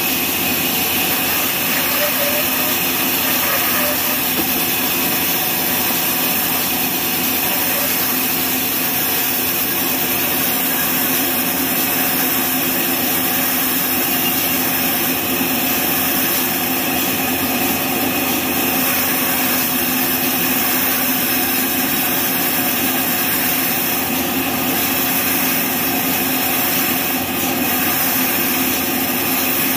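Horizontal band sawmill running steadily, its band blade cutting lengthwise through a neem log.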